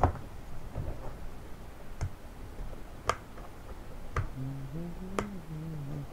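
Sharp plastic and cardboard clicks, five of them about a second apart, as the toy helicopter's packaging seals and insert are worked loose by hand. A man hums low from about four seconds in.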